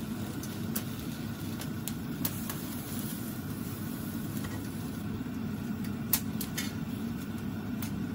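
Food cooking in a pan: scattered light pops and clicks, the loudest about six seconds in, over a steady low mechanical hum.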